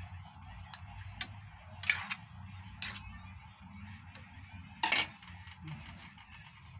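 Metal spoon clinking and scraping against a frying pan while stirring chicken pieces: a few sharp knocks, the loudest about five seconds in. A steady low hum runs underneath.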